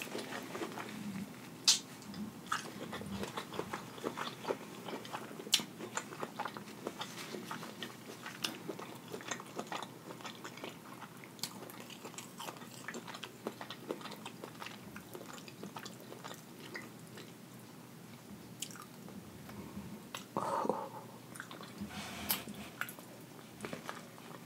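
Close-miked chewing and biting of sauce-coated shrimp, with many irregular wet mouth clicks and lip smacks.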